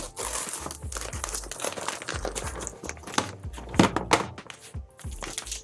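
Brown paper mailer envelope being handled and opened by hand: paper rustling and crinkling, with a few louder crackles about four seconds in as the contents are pulled out.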